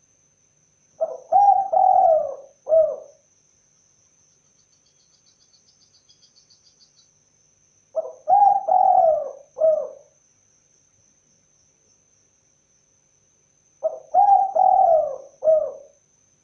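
Spotted dove (tekukur) cooing: three call phrases about six seconds apart, each a short opening note, two longer coos and a short final coo.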